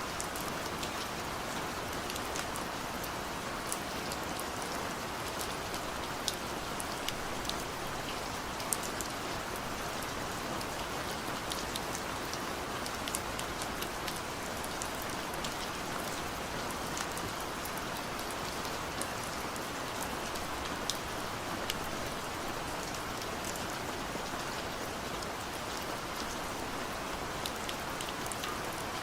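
Steady rain falling, an even hiss with scattered sharp drop ticks throughout.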